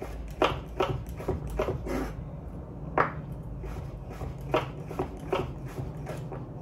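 Chef's knife slicing cucumber on a wooden cutting board: about ten irregular chops, each a short knock of the blade through the cucumber onto the board, with a brief pause partway through.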